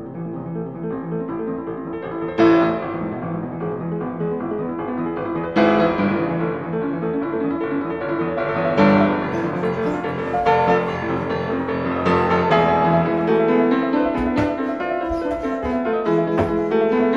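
Piano music: sustained chords with heavy struck accents every few seconds, moving to quicker, shorter notes near the end.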